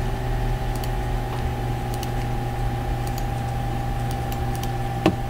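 Steady machine hum with several held tones, with faint scattered clicks of computer typing and a short knock about five seconds in.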